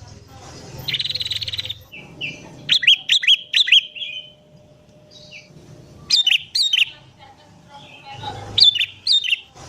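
Sooty-headed bulbul (kutilang) singing a song filled with prenjak (prinia) phrases. About a second in comes a buzzy, rapid trill, then short runs of quick whistled notes around three seconds in, again at six seconds, and near the end.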